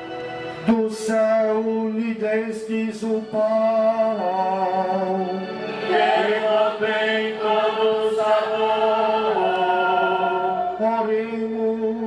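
A slow devotional hymn, sung with long held notes, amplified over a microphone.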